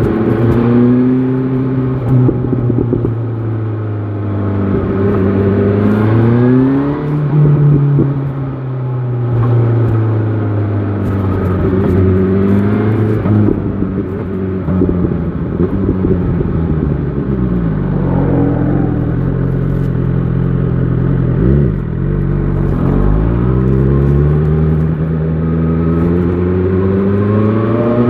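BMW S1000 XR inline-four engine under way, revving up through the gears several times with the pitch stepping down at each shift. Around the middle the revs fall away as the bike slows, then climb again near the end as it pulls away.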